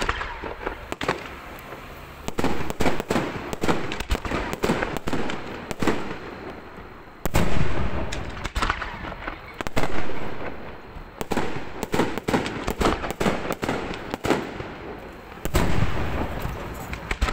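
Fireworks display: aerial shells bursting in rapid succession, a dense run of sharp bangs and crackle, with heavier booms about a third of the way in, just past halfway, and near the end.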